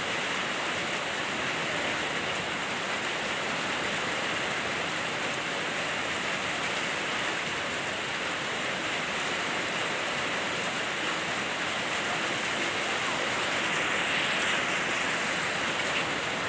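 Rain falling steadily, an even hiss of downpour without a break.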